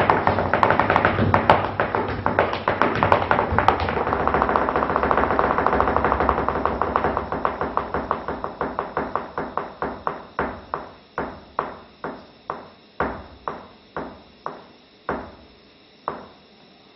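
Flamenco footwork (zapateado) in flamenco shoes on a stage floor: a fast, dense run of heel and toe strikes that slows to separate stamps about two a second, then stops.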